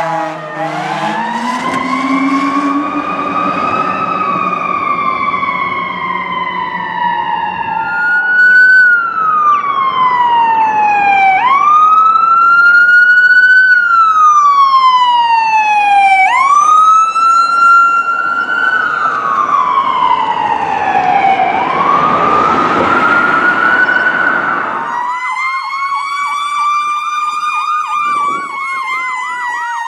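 Emergency vehicle sirens on responding fire apparatus and an ambulance. A wail siren rises and falls in long sweeps, each cycle climbing fast and falling slowly. Near the end a rapid yelp sounds over a falling wail.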